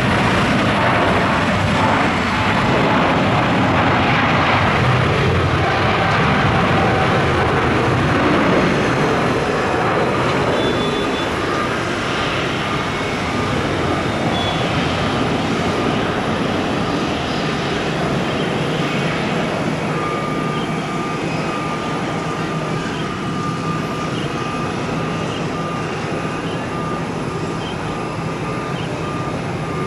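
Jet engine noise from a Lufthansa Boeing 747-8, a loud steady roar that slowly fades.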